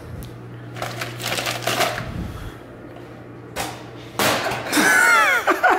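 Plastic water bottle crackling and knocking as it is thrown, caught and bounces off a chest. About four seconds in, a man breaks into loud whooping laughter that slides down in pitch.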